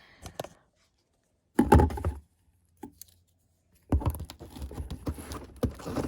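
A taped cardboard box being cut open with scissors and handled: a short burst of knocks and scraping about one and a half seconds in, then a longer stretch of clicking, scraping and rustling cardboard from about four seconds in.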